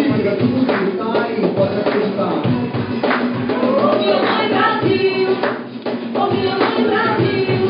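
Live acoustic band: a cajón keeping a steady beat under strummed acoustic guitars, with a man and then a woman singing.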